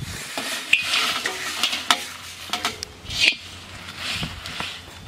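Dried red chillies and coriander seeds dry-roasting in a hot kadai, stirred and scraped with a flat metal spatula: a light sizzle with scattered clicks and scrapes of metal on the pan.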